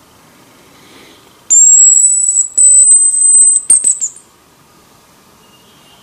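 A bird-call decoy whistle blown close by: a loud, high, thin whistle held for about two seconds with a brief break, ending in a few quick short notes.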